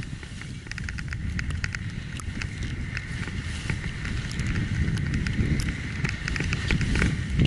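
A snowboard sliding down through soft snow, a steady hiss, with wind rumbling on the microphone and scattered small ticks and clicks. It grows louder near the end.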